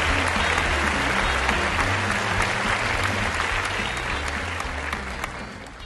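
Applause, a dense crackle of many clapping hands, over background music with a low steady bass, fading out near the end.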